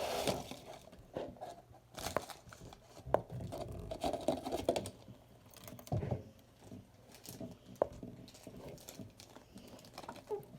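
Silicone bubbles of a mini Pop-It ball keychain being pressed down one after another, giving irregular soft pops and clicks.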